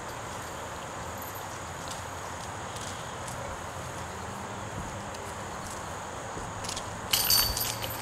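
A disc landing in a metal disc golf basket, a short loud metallic jangle of the chains about seven seconds in, over steady outdoor background noise.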